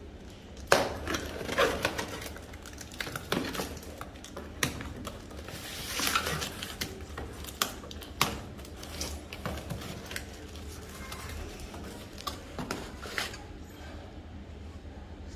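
Metal parts of a bicycle engine kit knocking and clinking as they are handled and set down, with some rustling in between. The sharpest knocks come about a second in and again around eight seconds in, and the handling thins out near the end.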